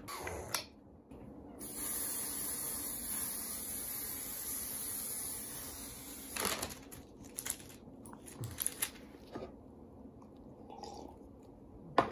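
Aerosol hair spray can spraying: one steady hiss lasting about four and a half seconds, starting about a second and a half in. Scattered light clicks and knocks follow.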